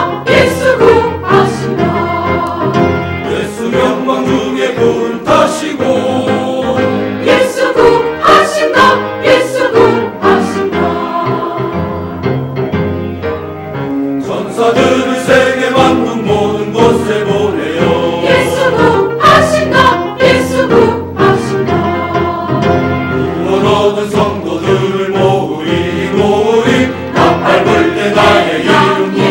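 Church choir singing a sacred anthem, many voices together, with a softer passage near the middle.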